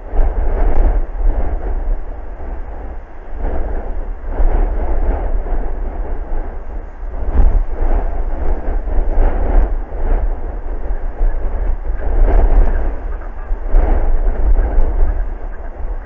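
Strong wind buffeting the microphone: a heavy low rumble that surges and eases in gusts every second or two.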